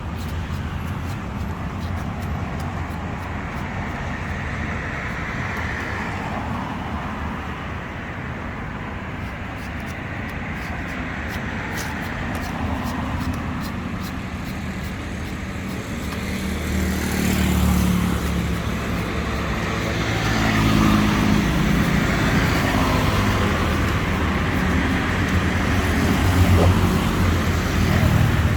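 Street traffic noise: motor vehicle engines running and passing, with a steady low rumble that grows louder about halfway through.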